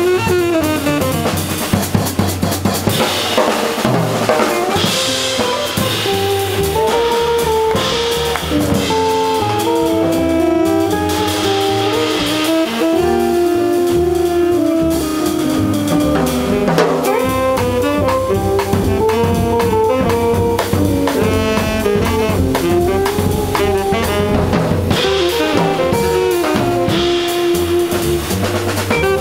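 Live jazz quintet playing: a busy drum kit with cymbals and rim shots under a melody line of held, stepping notes.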